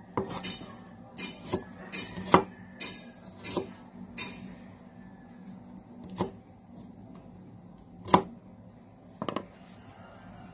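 Kitchen knife cutting an onion, the blade knocking down sharply about ten times at uneven intervals, most often in the first four seconds.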